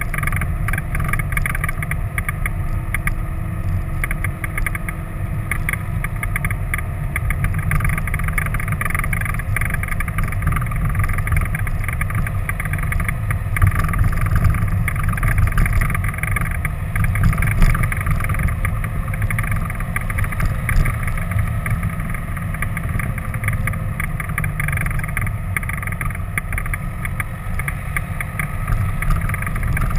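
A vehicle driving along a road: a steady low rumble of engine and tyres with a hiss on top, unchanging throughout.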